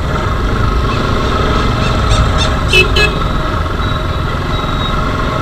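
Motorcycle engine running steadily while riding, with wind noise on the bike-mounted action camera's microphone.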